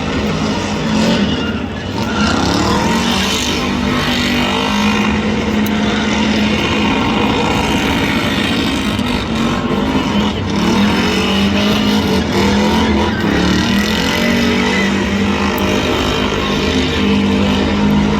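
Car engine running at high revs during a burnout, its pitch wavering up and down as the throttle is worked.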